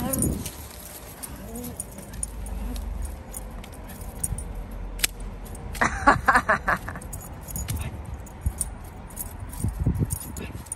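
A miniature schnauzer jumping for a stick, its collar and leash fittings jingling in light scattered clinks. About six seconds in comes a brief run of rapid, pitched vocal pulses.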